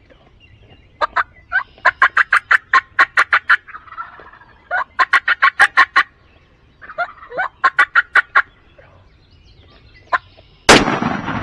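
Turkey yelping in three runs of rapid, sharp notes, with short pauses between runs. Near the end comes a sudden loud burst.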